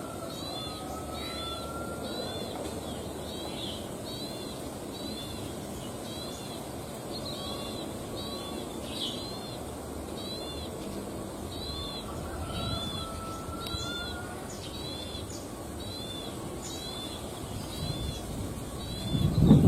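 A ciblek sawah (a prinia) calling over and over, a short double-arched chirp repeated steadily about once every three-quarters of a second, over a steady low background rumble. A loud low thump comes right at the end.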